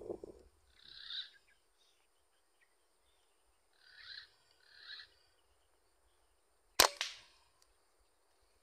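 A single sharp shot from a Greyhound T-Rex air rifle about seven seconds in, the loudest sound, with a short ringing tail. Before it come three faint, short bird calls.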